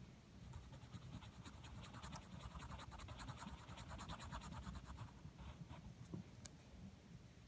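Pencil scribbling on paper: rapid back-and-forth strokes, about eight a second, shading in a small area, then a few single strokes near the end. Faint.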